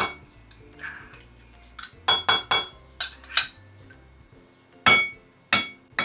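A metal spoon tapping and clinking against a bowl, about nine sharp, irregular clinks that ring briefly, as it knocks melted chocolate and butter out of its container.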